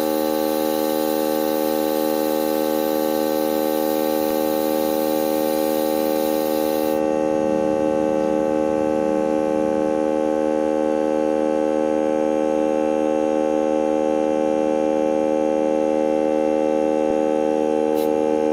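Tank air compressor running with a steady hum, while air hisses out of a tire valve stem to bring the pressure down from 42 psi; the hiss cuts off suddenly about seven seconds in.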